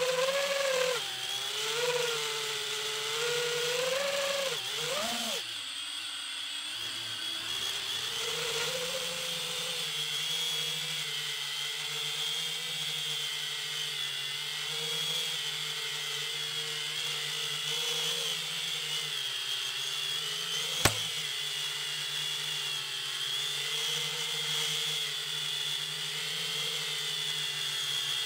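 FPV quadcopter's brushless motors and propellers whining, the pitch rising and falling with the throttle over the first few seconds, then holding fairly steady. A single sharp click about 21 seconds in.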